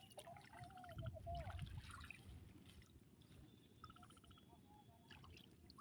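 Near silence: faint water trickling with a few faint short chirping calls.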